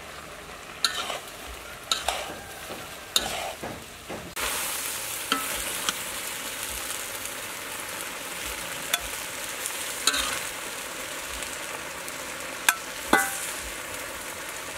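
Vegetables and pork offal stir-frying in a wok, with a metal spatula clinking and scraping against the pan. About four seconds in, a loud steady sizzle starts and runs on, with occasional sharp clinks of the spatula over it.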